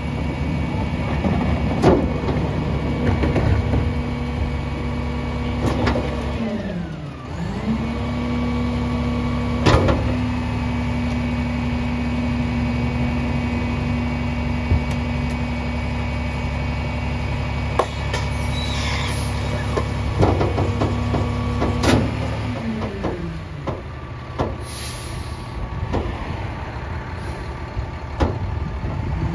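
Garbage truck's diesel engine running, speeding up near 7 s and holding a higher, steady pitch while the Heil PowerTrak rear loader's packer cycles, then dropping back to idle around 23 s. Several sharp metal clunks and knocks from the packer and carts, and two short hisses.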